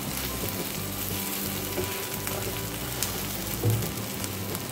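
Bread topped with a potato-masala layer frying in butter in a nonstick pan: a steady sizzle with fine crackles as it is pressed flat under a spatula.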